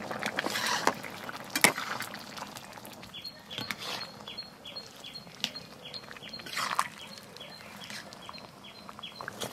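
Metal spatula stirring and scraping through a simmering egg and bottle gourd curry in a steel kadai, with scattered knocks against the pan. From about three seconds in, a bird calls over and over in the background, about two short chirps a second.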